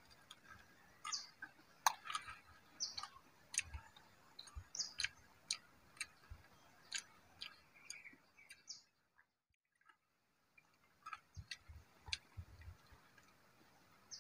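Faint, irregular light clicks and taps, a few with short high chirps among them, broken by a moment of silence about nine seconds in.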